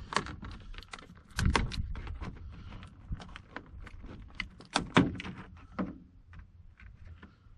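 Irregular clicks, knocks and light clatter of gear being handled, with the loudest knocks about a second and a half in and around five seconds, thinning out near the end.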